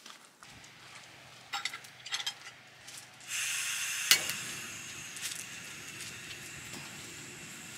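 A few clinks of cookware, then a sudden sizzle about three seconds in, with a sharp click, as food goes into a hot pan. The sizzle carries on steadily, slowly fading.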